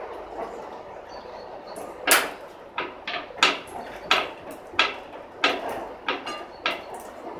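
A series of about ten sharp knocks or blows on the old cider press, coming unevenly from about two seconds in, one of them with a brief metallic ring.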